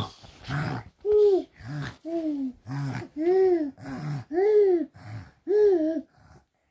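Snoring: a short low snort followed by a whistling tone that rises and falls, repeated about five times roughly a second apart, stopping about six seconds in.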